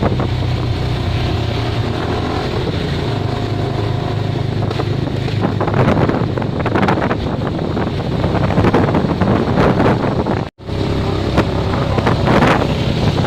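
An engine running steadily at a low, held speed on test, with wind buffeting the microphone. The sound cuts out for an instant about three quarters of the way through.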